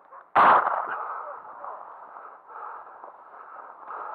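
A single shotgun shot about half a second in, sudden and loud, its report echoing and dying away over the following second or two.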